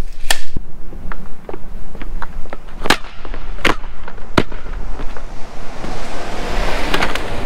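A car side skirt being stomped and jumped on, giving a run of sharp cracking impacts; the three loudest come a little under a second apart near the middle. A rush of noise builds near the end.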